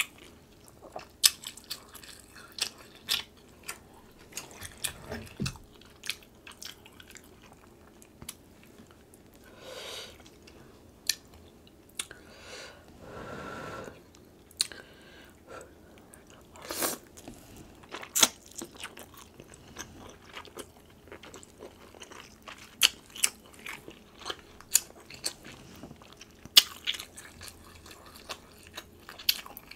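Close-miked eating: chewing and biting of sauce-dipped king crab meat, with many sharp crunchy clicks scattered throughout.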